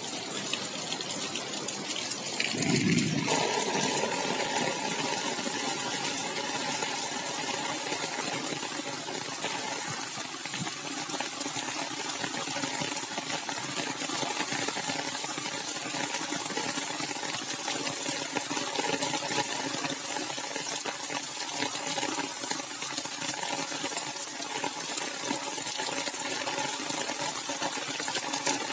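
Heavy rain falling steadily on wet paving and foliage, a continuous hiss of drops, with a brief low rumble about three seconds in.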